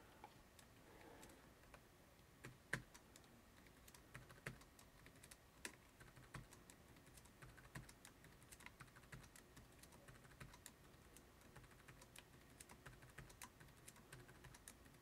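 Faint, irregular computer keyboard clicks, with scattered key taps throughout.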